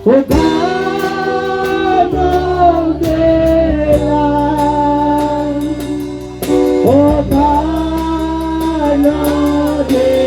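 Gospel worship music: singing over a band with guitar, bass and a steady drum beat.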